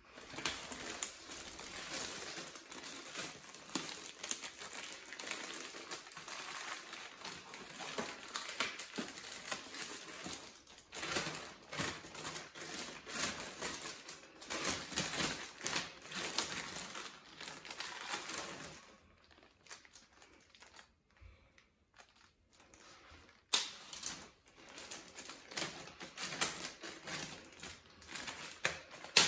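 Clear plastic bag crinkling and rustling as it is handled, with a folded vinyl inflatable toy inside. It goes almost quiet for a few seconds about two-thirds of the way through, then a sharp click and more crinkling.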